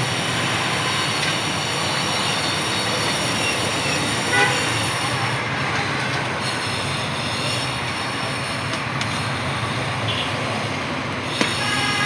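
Steady din of road traffic, with a short vehicle horn toot about four seconds in and another horn sounding near the end.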